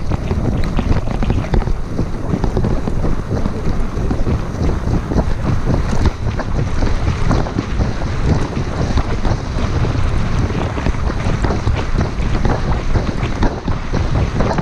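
Heavy wind buffeting the microphone as a Specialized Diverge gravel bike rides fast on a dirt track, with a steady low tyre rumble and frequent small rattling clicks from bumps in the surface.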